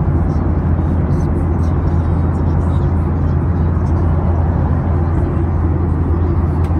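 Airliner cabin noise in cruise flight: a steady deep drone of engines and rushing air, unchanging in level.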